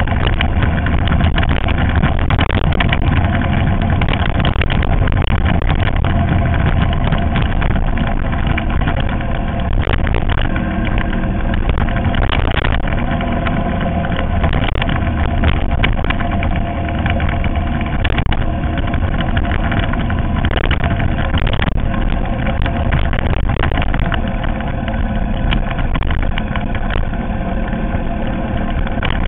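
Ural sidecar motorcycle's flat-twin engine running steadily while riding, with road and wind noise over it.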